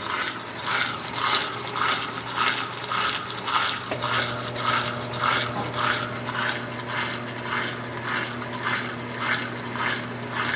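Consul Maré Super top-loading washing machine churning water and clothes, an even swish-swish about twice a second over a steady motor hum.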